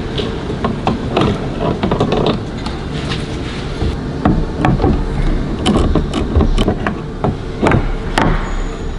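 Irregular metallic clicks and knocks of a wrench working a bolt on a bow thruster's lower unit, over a steady low rumble.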